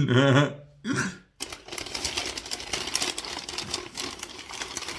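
A brief vocal sound, then a paper sandwich wrapper crinkling and crackling continuously as it is handled and unwrapped.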